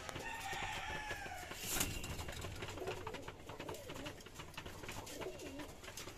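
Racing pigeons cooing in a wooden loft, with repeated low wavering coos through the second half. A higher, falling call sounds near the start, and a sharp knock comes about two seconds in, among small clicks.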